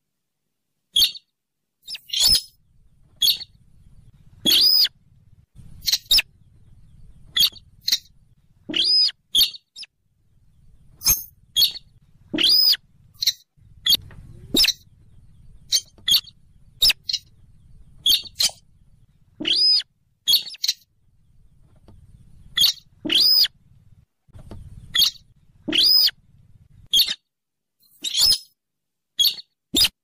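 Buff-banded rail calling: short, sharp, high squeaky calls repeated about once a second, some in quick pairs. A faint low hum sits underneath in stretches.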